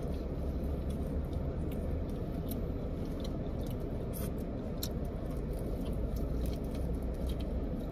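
Close-up chewing and biting on chicken wings, with scattered small mouth clicks, over a steady low rumble from the car.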